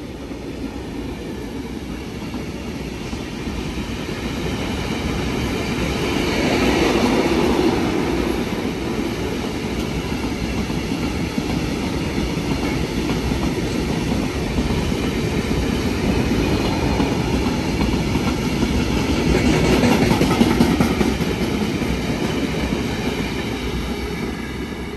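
A train passing through a station without stopping: a long, continuous running noise that builds, swells twice (about seven seconds in and again about twenty seconds in) and fades toward the end.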